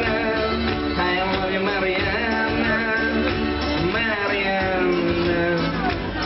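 Live band playing a song: a man singing over several acoustic guitars, with keyboard and drums.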